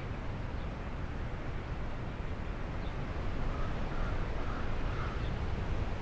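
A steady low rumble of wind and the distant roar of the waterfall down in the gorge, with a few faint high chirps about halfway through.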